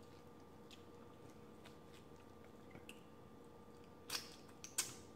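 Mostly quiet, with a few faint soft ticks as a deep-fried lobster tail is pulled apart by hand, then two sharp wet mouth smacks a little after four seconds in as fingers are licked.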